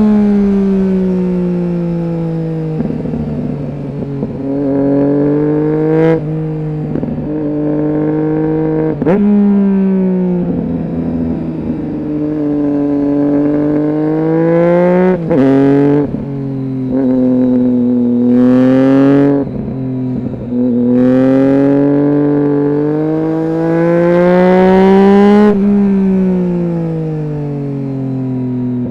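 Triumph Street Triple 675's inline three-cylinder engine running through a Roadsitalia aftermarket exhaust with one of its two dB killers fitted. The engine note rises and falls again and again as the engine speeds up and slows, with a few sudden jumps in pitch along the way.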